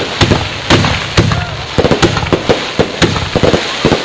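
Fireworks going off: a rapid run of sharp, irregular bangs, several a second, over a steady crackling rumble.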